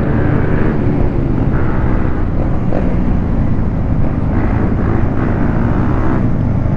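Motorcycle engine running at a steady pitch while riding, with heavy rushing noise on the microphone.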